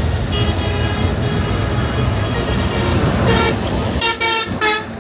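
Steady low rumble of engine and road noise inside a moving bus, with vehicle horn toots: a fainter held toot near the start, a short one past halfway, and two loud short blasts near the end.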